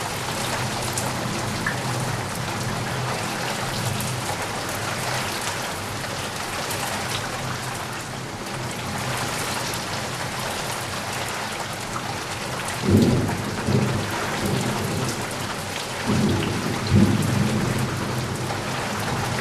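Steady heavy rain falling, with rolls of thunder rumbling in suddenly about two-thirds of the way through and again shortly after.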